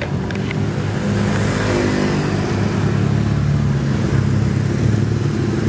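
A motor vehicle's engine running close by, a steady hum that comes up about a second in, over street traffic noise.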